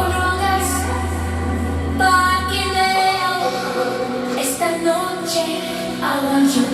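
Latin pop song with sung vocals and a heavy bass line that drops out about three seconds in, played back through ProAc K1 loudspeakers.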